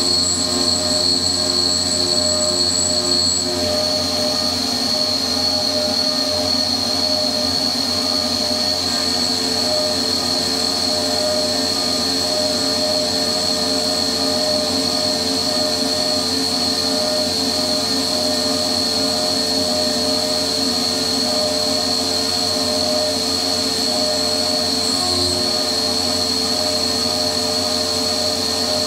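Flex CNC mill spindle driving an end mill along a shaft under flood coolant, cutting a keyway: a steady high whine over the cutting and coolant noise, with a slight change in tone about three and a half seconds in.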